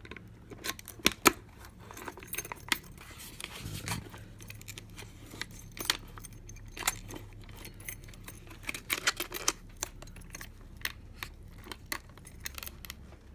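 A bunch of keys jangling and clicking as they are tried in a Hyper Tough digital deadbolt's key cylinder: many sharp metal clicks and rattles at irregular intervals.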